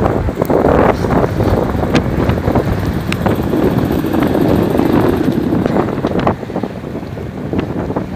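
Strong wind buffeting the microphone over the sea, a loud low rumble with scattered sharp knocks; it eases a little about six seconds in.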